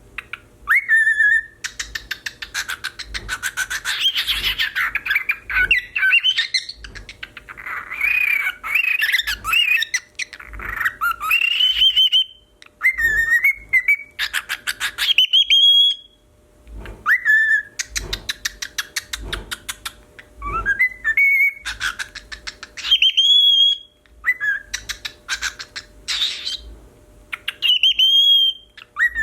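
Cockatiel whistling an imitation of a car alarm: short whistles sliding up and down, mixed with fast rapid-fire pulsed stretches, coming in loud bursts of a few seconds with brief pauses between them.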